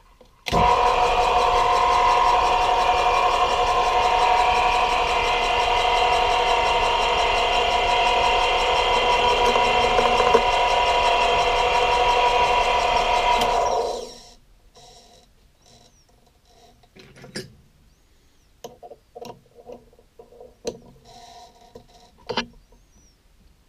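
1960s Swiss Lesto Scintilla lathe switched on, its motor and drive running with a steady whine for about thirteen seconds, then switched off and quickly spinning down. A few light clicks and taps follow.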